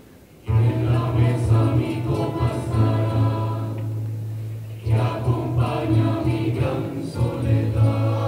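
Rondalla ensemble of acoustic guitars and double bass with voices in chorus. It enters together about half a second in after a short pause, drops briefly near the middle, then comes back in full over a steady bass line.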